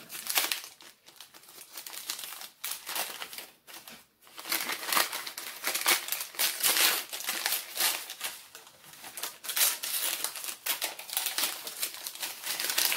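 Packing paper and bubble wrap crinkling and rustling as hands unwrap a paper-wrapped parcel, in irregular crackles that are sparser for the first few seconds and busier from about four seconds in.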